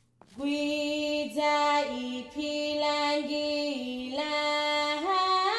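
A single woman's voice singing a slow, unaccompanied chant. It holds long notes that step down a little and back up, then climbs higher near the end.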